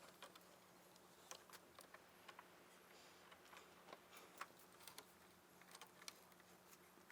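Near silence with faint, irregular light clicks and ticks, a few a second, typical of a screwdriver and screws being worked out of a wooden chair's corner braces.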